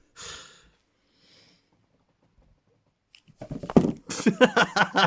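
A soft breath, then near silence, then from about three seconds in a person laughing in quick, loud bursts.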